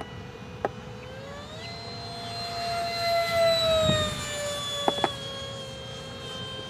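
Electric motor of a foam RC jet in flight: a steady whine that rises in pitch about a second in, is loudest a little past the middle, then drops slightly in pitch. A few sharp clicks sound over it, two close together near the end.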